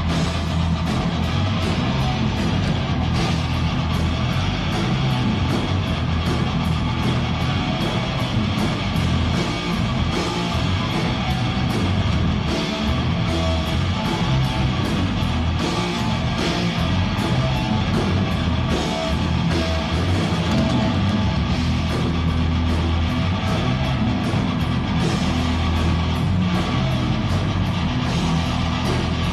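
Heavy metal band playing live: distorted electric guitars over a drum kit, loud and unbroken.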